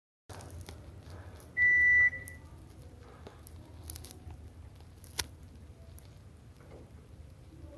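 Panasonic Eolia CS-E938K split air conditioner's indoor unit giving one short, clear beep about one and a half seconds in, the acknowledgement tone of a remote-control command, over a low steady hum with scattered small clicks.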